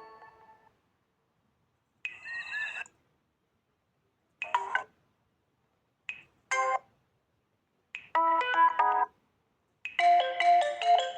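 Alcatel Pixi 3 (4) phone alert tones, played one after another with silence between them. A previous tone fades out at the start, then comes a one-second chime with a sweep, a single short blip, a quick double blip and a short melodic phrase. Near the end a longer melodic tune begins.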